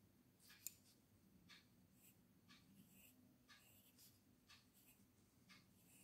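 Faint scratching of a graphite pencil on paper in short, quick strokes, about two a second, with one sharp tick under a second in.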